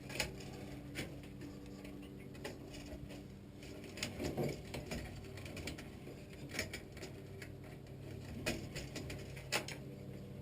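Scattered light clicks and small rattles of wires and a hand tool being handled while connecting wires to a furnace control board's terminals, over a steady low hum.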